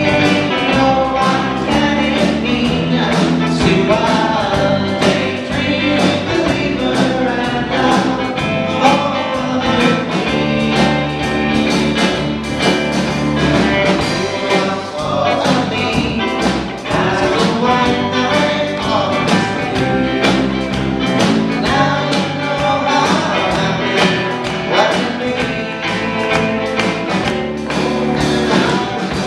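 Live band playing a song: a singer over electric guitars and a drum kit, with a steady beat.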